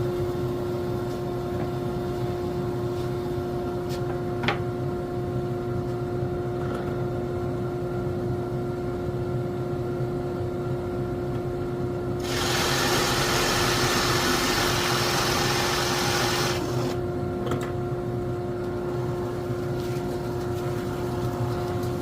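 Drill running at a steady pitch. For about four seconds past the middle, a louder rasping noise rises over the hum as the bit cuts into the wood, boring a hinge hole in a cabinet door.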